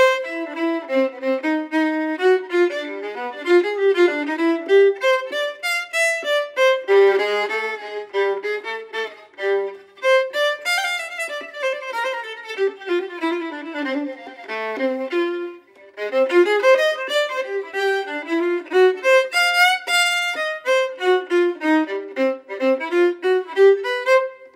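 Violin music: a quick-moving melody of many short notes, with a brief break about fifteen seconds in.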